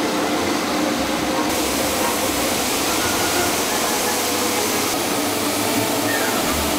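Compact street sweeper running, its suction fan and rotary side brushes giving a steady rushing noise.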